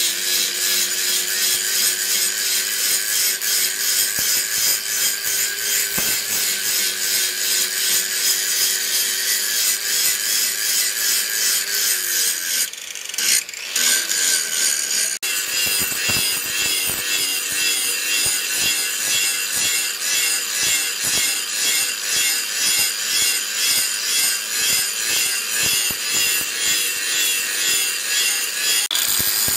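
Handheld angle grinder with an abrasive disc grinding leaf-spring steel: the motor runs steadily under a harsh, continuous grinding. About 13 seconds in the grinding briefly stops and the motor note sags, then it resumes with a regular pulsing as the disc is worked over the metal.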